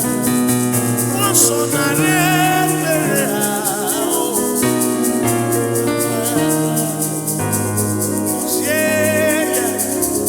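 Gospel worship music with a bass line, melody lines with vibrato and a fast, steady shaker rhythm.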